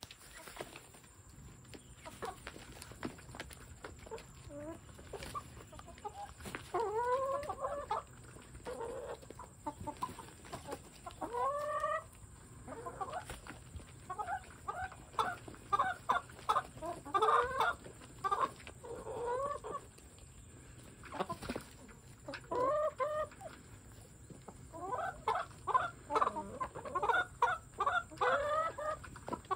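A flock of hens clucking while they feed, in clusters of short calls that bend up and down in pitch, the busiest stretches coming in the second half.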